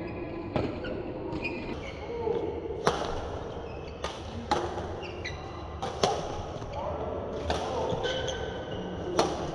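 Badminton rally: rackets smacking a shuttlecock about seven times, a sharp crack every second or two, with brief squeaks of court shoes between hits and voices in the hall.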